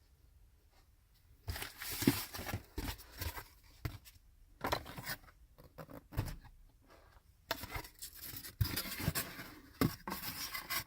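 Packaging being handled and pulled open: irregular rustling, scraping and tearing with sharp clicks, starting about a second and a half in, with a short pause past the middle.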